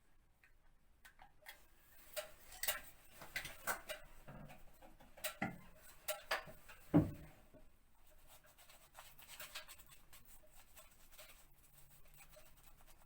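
Wallpaper seam being worked back down with adhesive by hand and tools: irregular light taps and scrapes, with a louder knock about seven seconds in, then softer rubbing over the paper.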